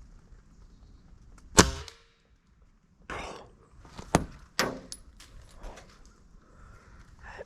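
A sharp metallic clang with a brief ring, then a few lighter clicks and knocks.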